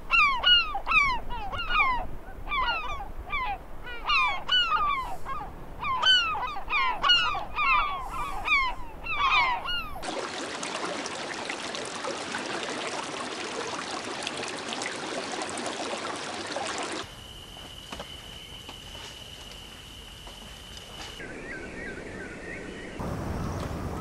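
A gull calling: a rapid series of loud, down-slurred calls for about ten seconds. A steady hiss then takes over, and later a quieter hiss with a thin steady high tone.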